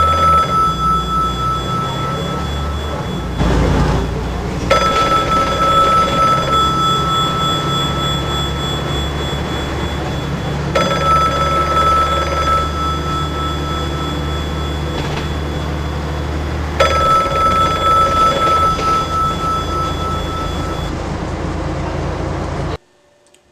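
City bus running, its low engine rumble heard from inside the cabin, with a ringing tone that starts afresh about every six seconds. Both cut off suddenly about a second before the end.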